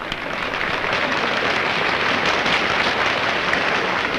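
Crowd applauding, swelling over the first second into steady, dense clapping.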